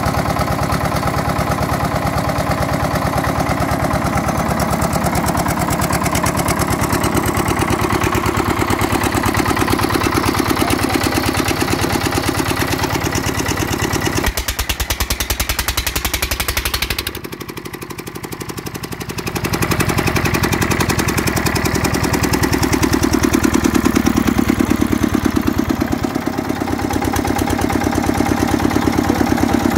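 Andoria S320 single-cylinder stationary diesel engine running steadily, with an even chugging beat; the sound drops briefly a little past halfway, then carries on as before.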